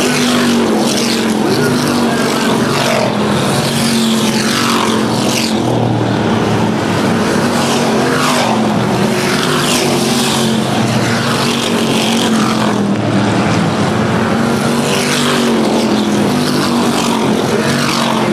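A field of street stock race cars running hard through a turn, passing close one after another. The engines drone continuously, with a falling pitch sweep each time a car goes past.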